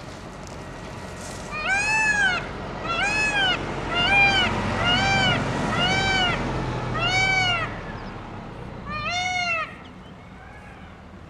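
An animal calling over and over: seven high-pitched calls, each rising and then falling in pitch, about one a second, with a pause before the last.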